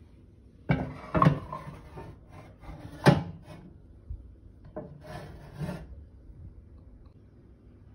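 Scraping and clunking of a baking dish being slid into an oven on its metal rack. The loudest sound is one sharp clunk about three seconds in, and there is more scraping a couple of seconds later as the rack is pushed in.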